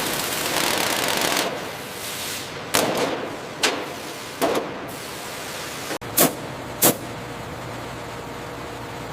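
A steady hiss that fades after about a second and a half, followed by five sharp knocks or bangs at uneven gaps of about a second.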